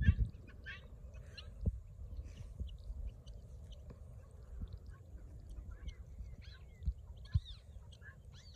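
Faint small birds chirping in short curved calls, thickest near the end, over a steady low rumble of wind on the microphone, with a few soft knocks.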